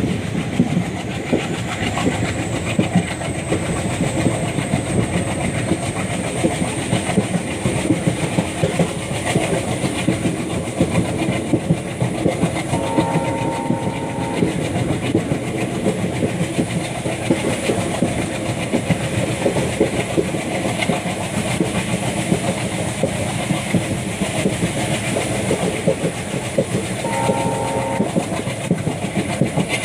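WDG3A ALCO diesel locomotive chugging under way, with the coach's wheels clattering over the rails, heard from a coach just behind the engine. The locomotive's horn sounds twice: a blast of about a second and a half some 13 seconds in, and a shorter one near the end.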